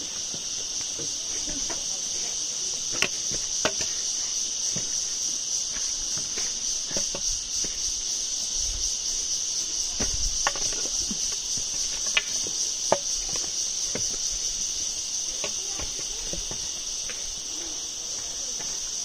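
A steady, high-pitched chorus of forest insects, with scattered clicks and knocks of footsteps on loose stones and rock.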